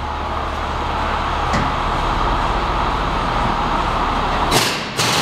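Steady mechanical drone of workshop machinery over a low hum; the hum drops away about four and a half seconds in, and two short, sharp hisses follow near the end.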